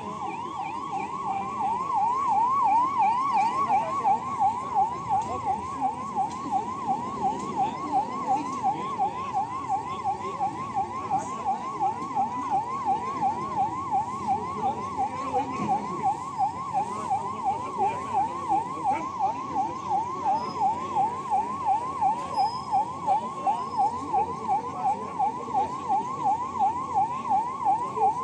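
Electronic siren sounding a fast, repeating rising sweep, about two cycles a second, that grows louder over the first few seconds and then holds steady, over low background noise.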